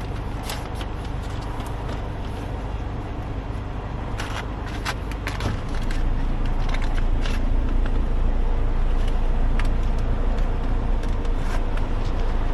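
Car engine and cabin noise heard from inside the car, a steady low rumble that grows louder about halfway through, with scattered small clicks and rustles of handling.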